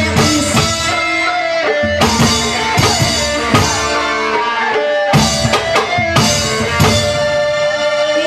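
Live band playing an instrumental passage: an electronic keyboard melody over a drum kit and guitar, with regular drum hits.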